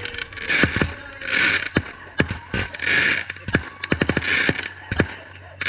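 Fireworks going off: a rapid scatter of sharp pops and crackles, with several short hissing bursts about a second apart.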